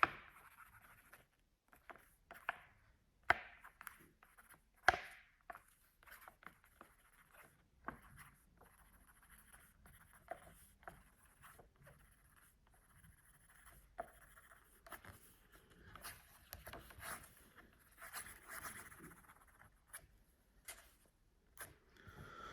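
Pen scratching faintly across a book page as an autograph is written, broken by scattered sharp clicks and taps from handling the book, the loudest about five seconds in.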